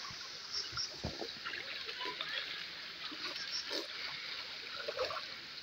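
A shallow river running with a steady rush, with scattered small splashes of water as a child is washed standing in it.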